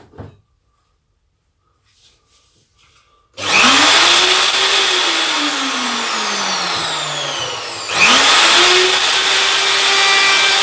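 Einhell TC-RO 1155 E 1,100-watt plunge router switched on about three seconds in, its motor whining up to full speed. Within about two seconds it is switched off and winds down with a falling whine, then it is switched on again about 8 s in and runs steadily at speed.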